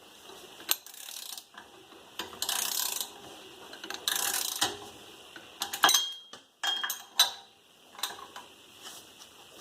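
Ratchet wrench clicking in short spells of rasping strokes while the rear wheel hub's mounting bolts are loosened, with a few single sharp metallic clicks in between.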